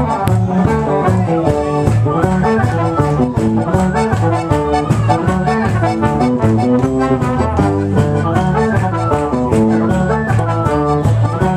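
Live Celtic rock band playing a fast instrumental passage: a quick, stepping melody line over a steady, driving drumbeat.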